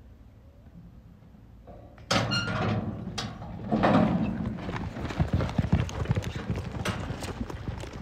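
A steel roping chute gate bangs open with a ringing clang about two seconds in. A steer breaks out and horses gallop after it on arena dirt, with fast, close-set hoofbeats.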